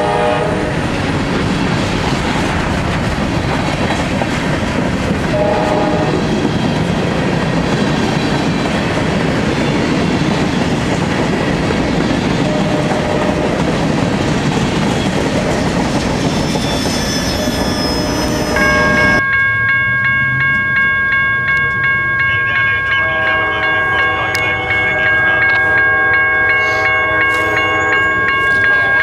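Freight train rolling past close by: a steady rumble and clatter of wheels on rail. About two-thirds through, it cuts abruptly to a locomotive horn sounding long, steady chords from an approaching train.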